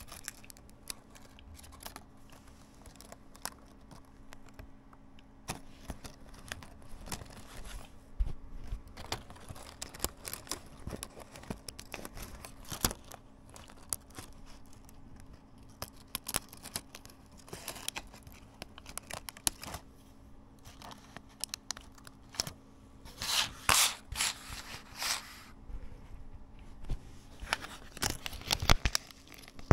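Laptop keyboard being taken apart by hand: irregular small plastic clicks, snaps and scratches as keycaps and their plastic scissor clips are pried off and handled. About three-quarters of the way through there is a louder rasping stretch of a couple of seconds. A faint steady hum runs underneath.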